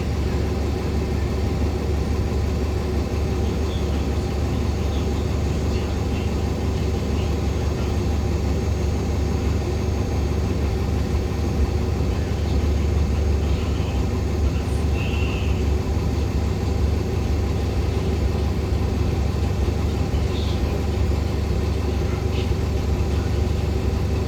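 Inside a diesel-hybrid articulated city bus: the Cummins ISL9 diesel and Allison hybrid drive running steadily, a constant low drone with road noise and no change in pace.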